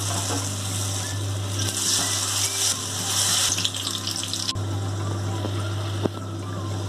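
Potato pieces deep-frying in hot oil in a wok, a dense bubbling sizzle. The sizzle eases a little about two-thirds of the way through as the pieces are lifted out with a wire spider strainer, and the strainer clicks once against the wok near the end.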